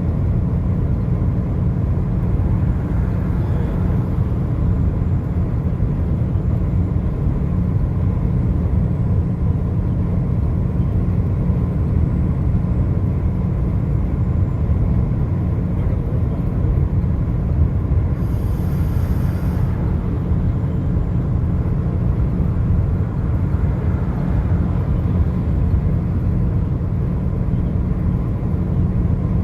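Steady low rumble of a vehicle driving on a highway: road and engine noise, with a brief hiss about two-thirds of the way through.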